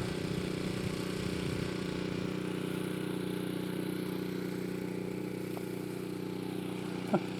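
Small gasoline engine of a snowblower idling steadily.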